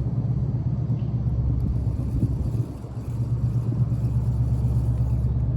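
Wind buffeting the microphone: a steady low rumble that eases briefly about three seconds in.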